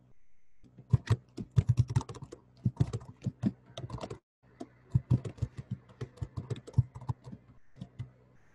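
Typing on a computer keyboard: quick, uneven runs of keystrokes with a short pause about four seconds in.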